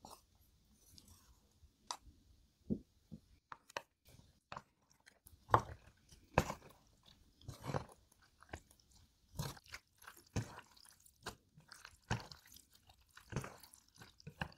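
Chopsticks stirring jjajangmyeon noodles through thick black bean sauce in a bowl: irregular sticky, wet strokes and clicks, louder and more frequent from about five seconds in.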